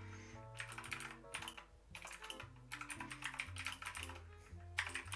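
Fast typing on a computer keyboard in several bursts with short pauses between them, over quiet background music.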